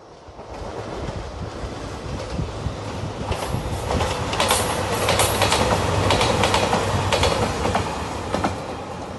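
JR Shikoku 2700 series diesel express train passing by. A rumble builds and is loudest around the middle, with a run of clacks as its wheels cross the rail joints, then eases off near the end.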